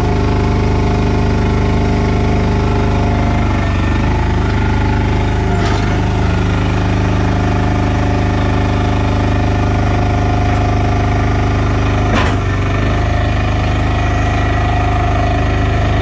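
Mud Hog hydraulic mortar mixer's engine running steadily, with a short knock about six seconds in and another about twelve seconds in.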